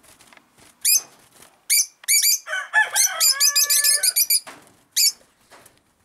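Lovebirds giving shrill, repeated high chirps in quick runs. About halfway through, a rooster crows once with a drawn-out, held call.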